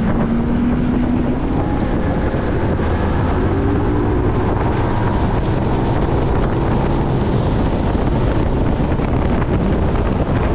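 Bass boat running at speed under outboard power: a steady engine drone with rushing water from the hull, under heavy wind noise on the microphone.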